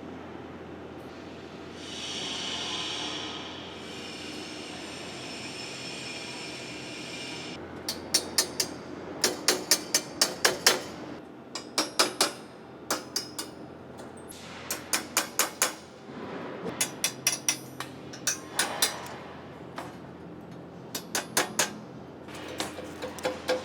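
A steady hiss for a few seconds. From about eight seconds in, sharp ringing metal taps come in quick bursts of several strikes at a time, as laser-cut metal parts are worked at the deburring stage.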